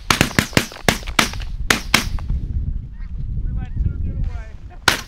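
A rapid volley of shotgun fire from several hunters, about nine shots in two seconds. Snow geese follow with high, wavering honks overhead, and one more shot comes near the end.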